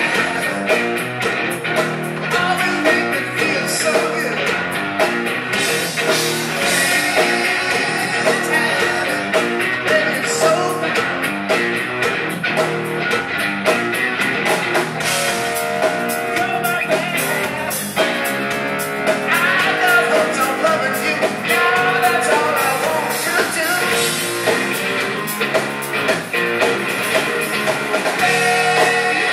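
Live rock band playing at full volume: electric guitars driven by a drum kit with a steady beat, and a lead vocal over them, heard from the audience in a music hall.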